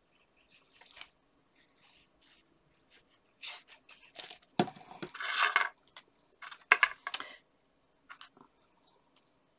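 Sheets of card and paper being handled and laid together: scattered rustles and light clicks, with two louder bursts of scraping and crinkling paper near the middle.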